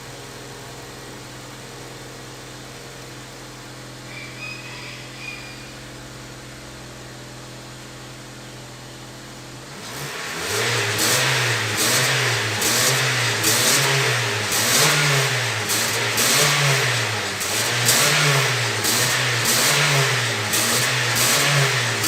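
Honda Civic engine idling steadily, then from about halfway through revved over and over, its pitch rising and falling about once a second, through a freshly fitted muffler. The accelerating whistle it had been making, blamed on the old muffler's broken-up core, is gone.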